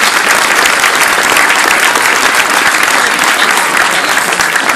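Audience in the stands applauding: a dense, steady clapping that holds at full strength throughout.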